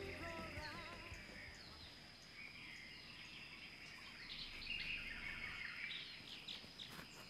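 Faint forest ambience with scattered bird chirps and calls over a steady high whine, as background music fades out in the first second.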